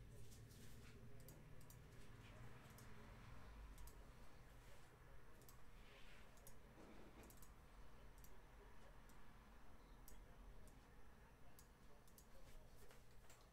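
A dozen or so faint, scattered computer mouse clicks over near-silent room tone.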